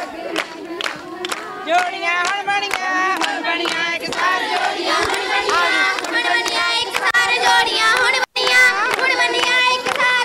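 A group of women singing a Punjabi boliyan folk verse together for giddha, with quick, steady hand-clapping keeping the beat. The sound cuts out for a moment about eight seconds in.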